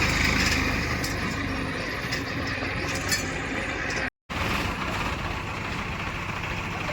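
Heavy diesel machinery running steadily, a little louder in the first second, with a short clink about three seconds in. The sound cuts out completely for a split second just after four seconds, at an edit.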